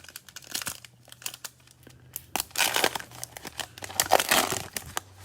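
A trading-card pack wrapper being torn open and crinkled by hand, with crackling handling throughout and two louder crinkling stretches in the second half.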